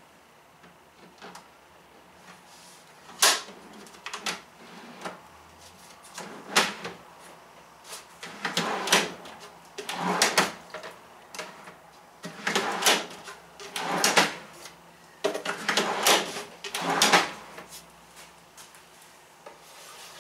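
Plywood drawer box running in and out on metal drawer slides, over and over: about eight noisy sliding strokes, the loudest a sharp knock about three seconds in.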